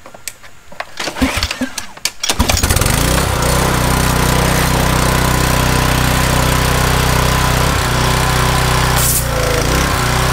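Small gas engine of a pressure washer starting up: a few clicks and knocks, then it catches about two seconds in and runs steadily.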